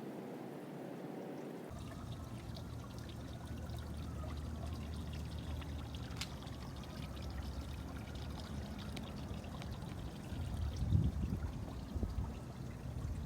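Steady outdoor rushing noise, with low wind rumble buffeting the microphone in gusts near the end.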